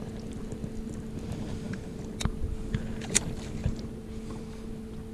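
Steady hum of a bow-mounted electric trolling motor running, with two sharp clicks about two and three seconds in, the second the louder.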